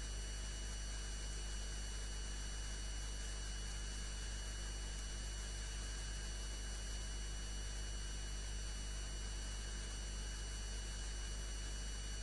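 Steady electrical hum under an even hiss, with several thin high whining tones held at a constant pitch. It is the noise floor of the audio track: there is no music or speech.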